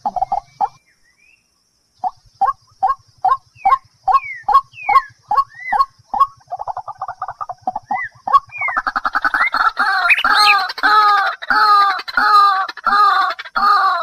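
A fowl clucking: after a short pause, single calls about two a second, then a faster run of clucks, breaking into loud rapid clucking from about nine seconds in.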